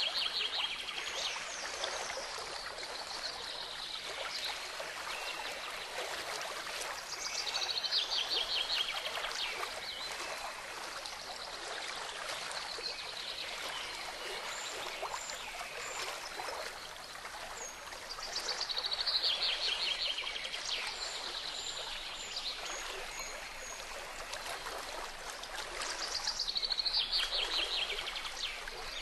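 Steady rush of a running stream, with a songbird singing a short descending trill about every nine to ten seconds and a few brief high chirps in between.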